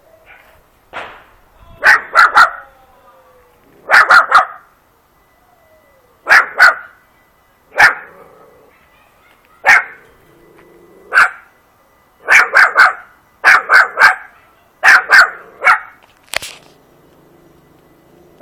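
A four-month-old German hunting terrier (Jagdterrier) puppy barking in sharp yaps, singly and in quick runs of two or three, again and again with short pauses between.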